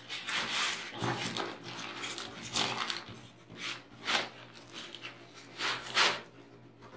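Cardboard boxes scraping and rubbing against each other, with plastic wrapping rustling, as a boxed item is worked out of a cardboard carton packed with thermocol: a string of short, irregular scuffs.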